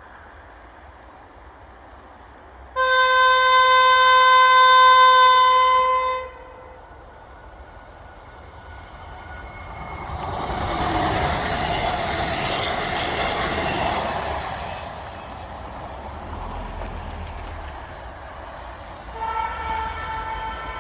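Kockums Tyfon air horn on a Swedish electric multiple-unit train giving one long, steady blast of about three and a half seconds. Then comes the rushing wheel-and-rail noise of the train passing for several seconds, and near the end a steady horn blast starts again.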